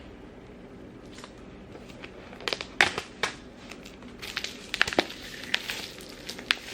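Cardboard box and paper packaging being opened and handled: irregular crinkling, rustling and sharp clicks. They start about two seconds in and come in several loud spurts.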